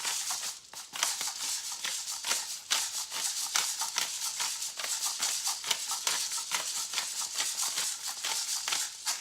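Black pepper being dispensed from its container over seasoning mushrooms: a continuous dry, crunchy rattle of fine clicks that lasts throughout.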